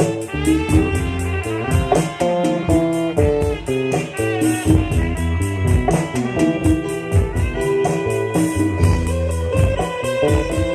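Instrumental break in a Bengali song: a melodic lead over a steady drum beat, with no vocals.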